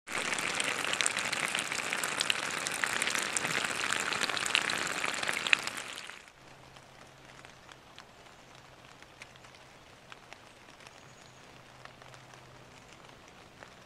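Rain falling on wet fallen leaves: a dense patter of drops. About six seconds in it drops off sharply to a much quieter, sparser patter.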